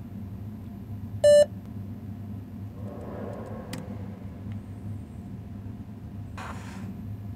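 A single short electronic beep about a second in, over a steady low hum, with a brief rustle near the end.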